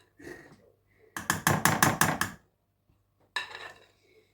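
A kitchen utensil knocking and scraping against a mixing bowl while the last cake batter is worked out into the pan: a quick run of about six clatters, then a shorter one about three seconds in.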